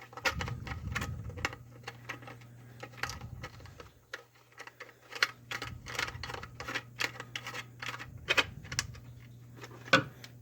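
Irregular small metallic clicks and taps as a wire clamp is screwed into a garbage disposal's wiring access opening with a screwdriver, over a steady low hum.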